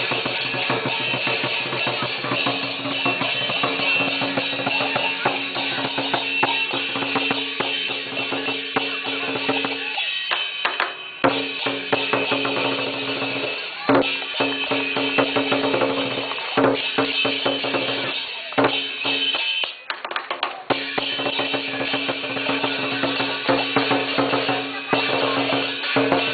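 Lion dance percussion: a Chinese drum beaten in rapid patterns with clashing cymbals and a ringing gong, breaking off briefly a few times.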